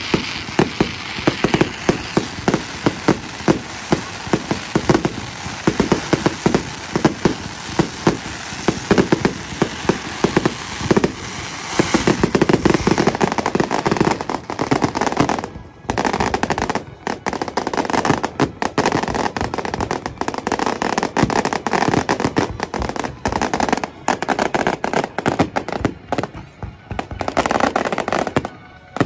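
Aerial fireworks going off in rapid volleys: many bangs and crackling, thickening into an almost continuous barrage about halfway through, with a brief lull near the end.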